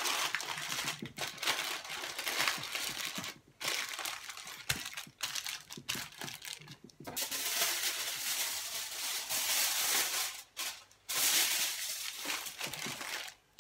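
Baking paper crinkling and rustling as hands fold and press it tightly around a lamb shoulder, in irregular bursts with short pauses and a longer unbroken stretch past the middle.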